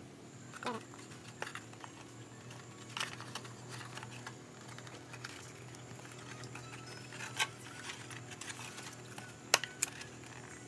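Scattered light clicks and taps of thin plywood panels being handled and pressed together at their finger joints, with a few sharper clicks in the second half. A steady low hum runs underneath.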